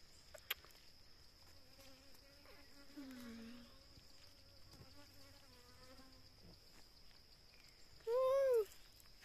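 Steady high-pitched insect drone throughout. Near the end comes one short, loud call that rises then falls in pitch.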